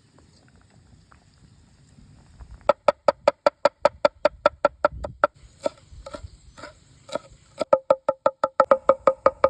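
Rapid, even chopping strokes on a wooden cutting board, about six a second, each with a short woody ring. They begin a few seconds in, slow to a few scattered strokes in the middle, then pick up again in a fast run near the end.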